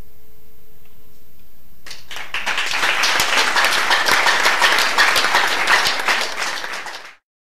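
A final held note from the band fades out, then a small audience applauds with many quick claps from about two seconds in, cutting off abruptly near the end.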